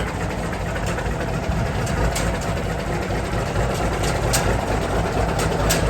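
Diesel engine of a Peterbilt 362 cabover truck idling steadily, with a few sharp ticks on top.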